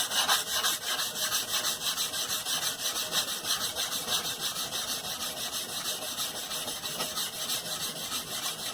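400-grit sandpaper wrapped around a small metal ruler, rubbed back and forth along the bevel of a steel knife blade in quick, even strokes: hand-sanding the blade after grinding.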